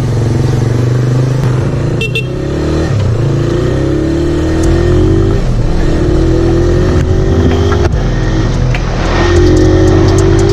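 Motorcycle engine accelerating under load, its pitch rising steadily and dropping back about twice as it shifts up through the gears.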